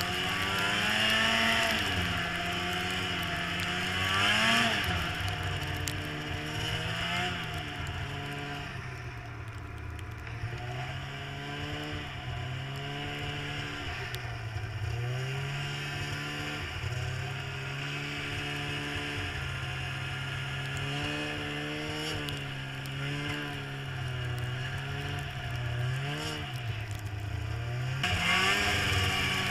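Snowmobile engine running on the move, its pitch rising and falling again and again as the throttle is opened and eased, over a steady rushing noise.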